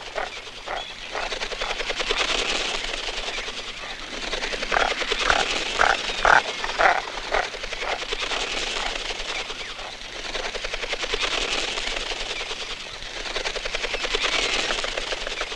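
Fast, even whirring of a goosander's wingbeats in flight, swelling and fading several times, with a few louder short calls about five to seven seconds in.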